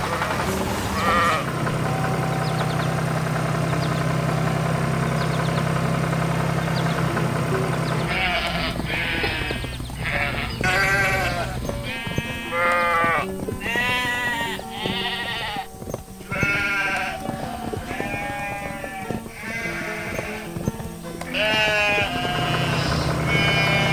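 Background music with cartoon animal calls: a steady low hum for the first several seconds, then a long run of rising-and-falling calls, about one a second, before the hum returns near the end.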